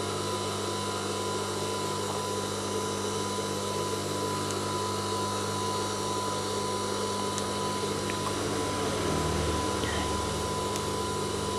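Steady electric motor hum of an industrial sewing machine left running with nothing being sewn, with a faint regular pulsing in its low tone.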